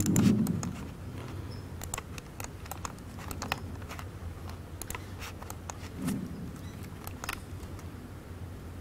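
Scattered, irregular clicks of a laptop keyboard and touchpad being worked, over a steady low room hum, with a brief louder low sound at the very start.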